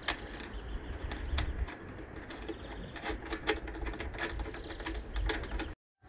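Handling noise from a plastic car snorkel body: scattered small clicks and taps over a low rumble, cutting off suddenly near the end.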